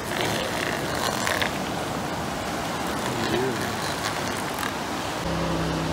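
Northern elephant seals calling from a packed beach over steady surf noise. A steady low hum starts near the end.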